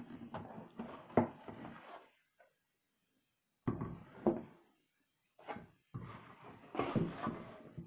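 Cardboard board-game box lid being pulled off the box and set aside: cardboard rubbing and sliding, with a few sharp knocks of the box on a wooden table, broken by a short silence about two seconds in.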